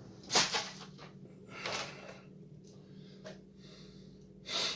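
Grey plastic model-kit sprues clattering as they are handled and set down, with a sharp clatter about half a second in and softer ones later.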